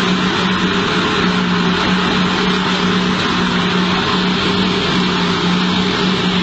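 Heavy diesel mining machinery running: a steady, loud engine drone from the large wheel loader and haul truck, with no distinct knocks or impacts.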